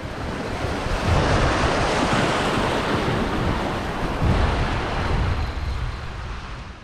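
Surf washing and breaking over a rocky shore ledge, a continuous rush that swells and ebbs, with wind buffeting the microphone in low gusts. It fades away near the end.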